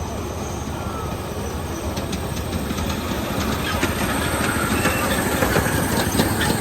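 Train running on the rails, its wheels clicking over the rail joints, the rumble growing louder and the clicks thicker in the second half.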